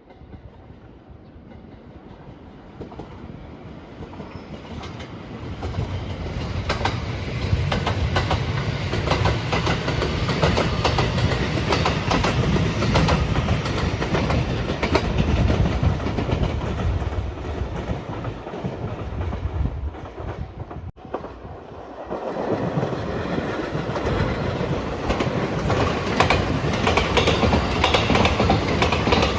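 Passenger train passing close by, its wheels clattering over the rail joints. The sound builds up over the first few seconds and stays loud, cuts off abruptly about two-thirds of the way through, then comes back loud again.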